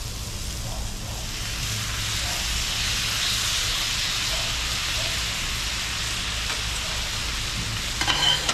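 Teriyaki sauce sizzling as it is poured onto diced vegetables on a hot griddle, the hiss building about a second in and then holding steady. Near the end, metal spatulas scrape and clack against the griddle as the mixing starts.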